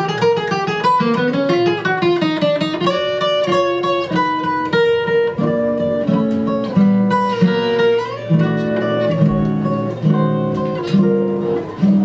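Solo flat-top acoustic guitar playing a jazz-style tune. Quick single-note runs come first, then chords in a steady rhythm from about eight seconds in.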